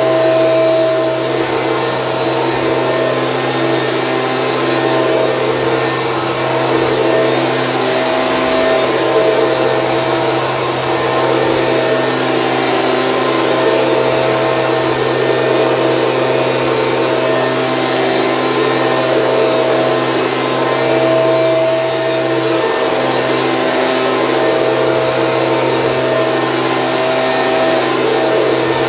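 Stihl BG 86C handheld leaf blower, its small two-stroke engine and fan running steadily at a constant speed.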